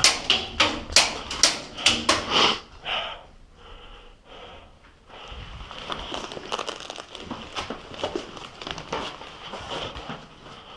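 Airsoft gunfire: a quick run of sharp snaps, about two a second, for the first two and a half seconds. After a short lull it is followed by a steady patter of small clicks and rustling, like movement and gear.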